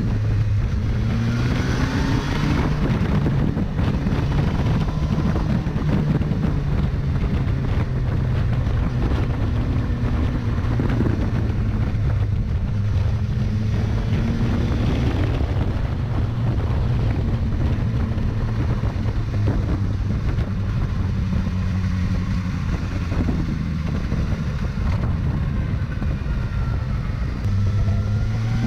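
Road-vehicle engine running at fairly steady revs, its pitch rising about two seconds in and again near the end as it is revved or accelerated.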